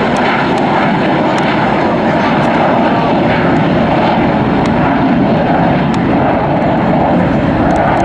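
Jet airliner engines heard as a loud, steady rush that holds without rising or falling.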